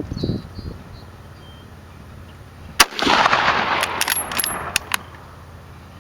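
A single loud rifle shot about three seconds in, followed by about two seconds of echoing noise and several sharp cracks or clicks.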